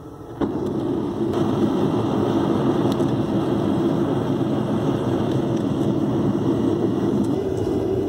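Gas forge burner running with a steady roar. It comes on suddenly about half a second in and holds level throughout.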